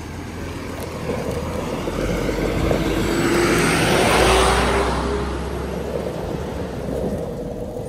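A motor vehicle driving past on a paved road: its engine and tyre noise swell to loudest about four seconds in, then fade away.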